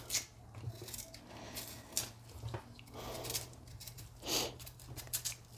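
Kitchen knife cutting and scraping the peel off cassava roots: irregular quiet scrapes and clicks, with a faint steady hum underneath.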